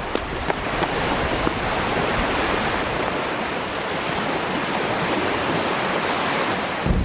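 Sea surf: a wave washing in, swelling in the middle and easing off near the end.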